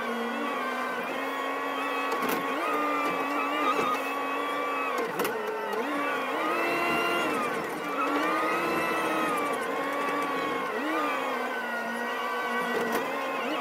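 JCB Loadall telehandler engine running, heard inside the cab, its pitch rising and falling several times as the driver works the hydraulics to lift a stack of straw bales on the forks. A few sharp knocks sound along the way.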